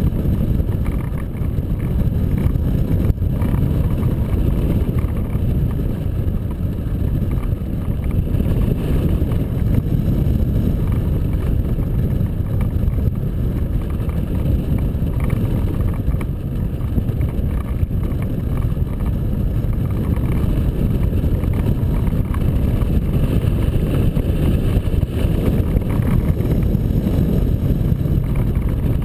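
Loud, steady rumble of airflow buffeting the microphone of a camera mounted on a hang glider in flight.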